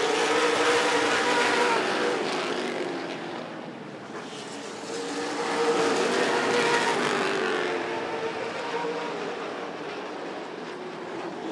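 Late model stock cars' V8 engines running hard as the pack races around the oval. The sound swells, fades about four seconds in, swells again around six seconds, then drops off.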